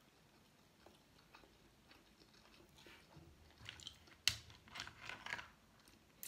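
Close-up mouth sounds of eating seafood: chewing and crunching that begin about three seconds in, with a sharp crack just after four seconds.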